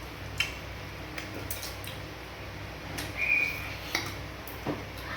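Scattered light clicks and clinks of dishes being handled, a few in all, with a brief high squeak about three seconds in.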